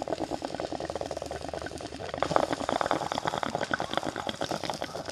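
Water bubbling in a glass bong as smoke is drawn through it: a fast, steady gurgle.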